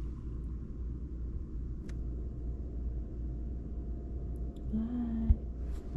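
A low, steady rumble from a cat's furry body pressed right against the camera microphone. About five seconds in there is a brief pitched tone, then a short knock.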